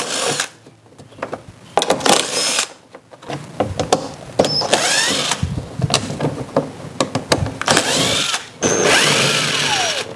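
DeWalt cordless impact driver running in several short bursts, backing out the bolts that hold a scooter's rubber floorboard, its motor whine dropping in pitch as each burst ends.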